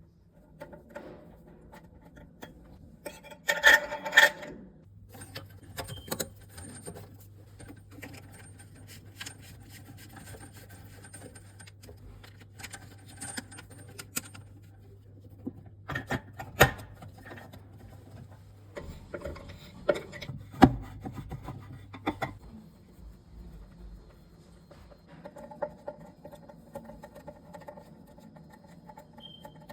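Hands working on plumbing parts for a kitchen sink: rubbing and scraping, with scattered clicks and knocks, a loud scraping burst about four seconds in and sharp knocks later on. A low steady hum runs under most of it.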